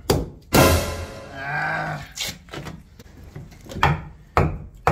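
Hammer blows on a wooden boat stringer: four sharp, irregular strikes, the first the loudest. A brief pitched sound follows the first blow.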